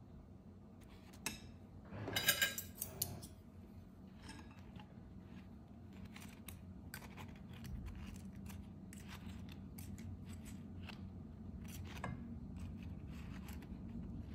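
Kitchen handling sounds: a short burst of quick rasping clicks about two seconds in, then scattered light clicks and taps, over a faint steady hum.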